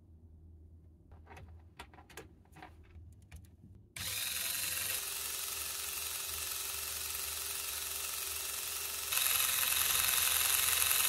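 A few faint clicks of LEGO Technic parts being handled. Then, about four seconds in, a LEGO XL motor starts driving the crane's winch spool, winding string in with a steady mechanical whine. It gets louder near the end and cuts off sharply.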